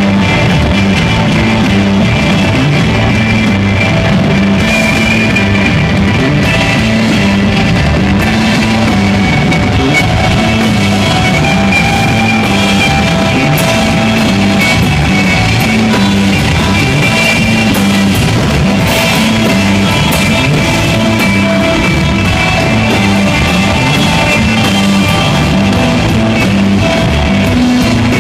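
Live instrumental desert rock trio playing loudly: electric guitar over bass guitar and drum kit, with a steady repeating bass line.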